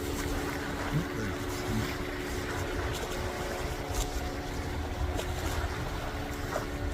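Motorboat engine running steadily, a low even hum over a rumbling background.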